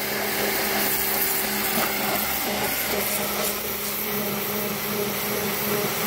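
Lavor 1800 W electric pressure washer running, its motor and pump humming steadily while the high-pressure water jet hisses against clay roof tiles.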